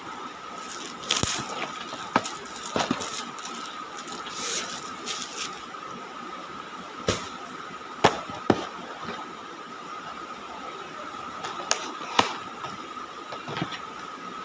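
Chocolate box and wrapper packaging being handled and opened: crinkly plastic rustles with scattered sharp clicks and taps, the loudest a pair about eight seconds in. A faint steady high hum runs underneath.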